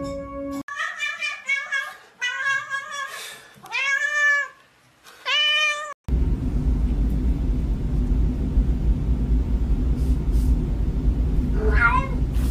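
A cat meowing over and over, a string of drawn-out meows that rise and fall in pitch. About halfway through, a sudden cut brings in a steady low rumble, the loudest sound, with one more short cry near the end.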